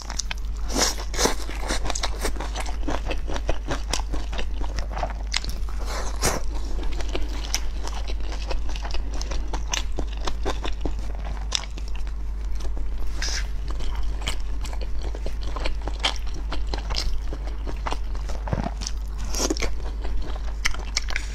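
A person chewing and biting a spicy stir-fried dish and rice, with many irregular crisp clicks of mouth and food noises.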